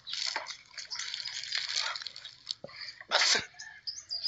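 A man laughing under his breath while doubled over: a run of breathy, hissing wheezes, with a stronger burst just after three seconds.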